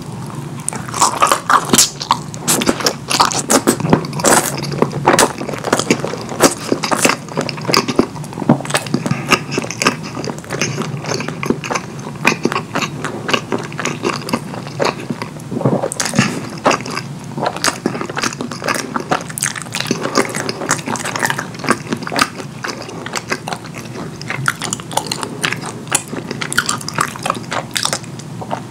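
Close-miked eating sounds: a person biting and chewing curry food, with many sharp, irregular wet smacks and clicks.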